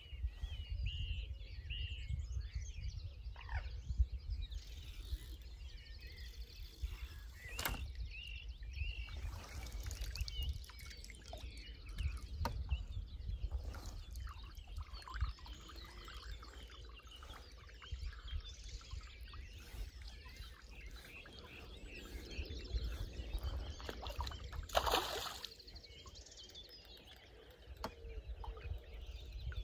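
Outdoor lakeside ambience: wind rumbling on the microphone, with scattered birdsong chirps throughout. A short, louder sound stands out about 25 seconds in.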